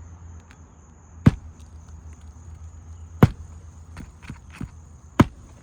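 Hammer striking on an asphalt shingle roof: three sharp blows about two seconds apart, with a few lighter taps between the second and third.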